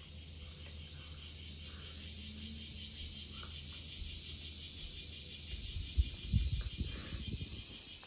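Insects chirring: a steady high buzz that pulses quickly and evenly. A couple of soft low thumps come about six seconds in.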